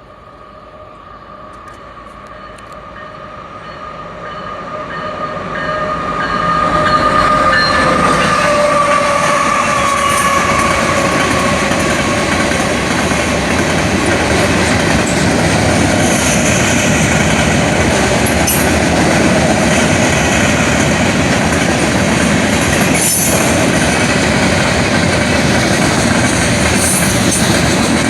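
A train approaching and passing close by. It grows steadily louder over the first seven seconds, with a steady tone that drops slightly in pitch as the front goes by. Then the cars roll past with a continuous rumble and wheel clatter, and there is a sharp clank about 23 seconds in.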